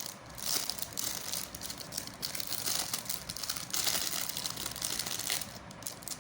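Plastic packaging crinkling and rustling irregularly as a USB phone charger is unwrapped and handled.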